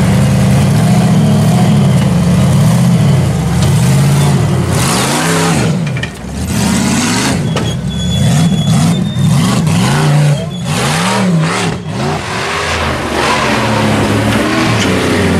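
Engines of off-road buggies and a lifted truck running loud and revving up and down again and again as they crawl over the course obstacles. The pitch swells and drops about once a second through the middle stretch.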